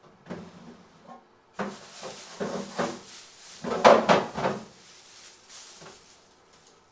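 Kitchen clatter: a run of knocks and scrapes as things are handled and moved about, loudest about four seconds in, then tailing off.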